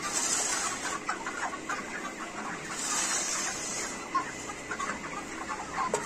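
A flock of broiler chickens clucking and peeping continuously. A spade scrapes through rice-husk litter near the start and again about three seconds in.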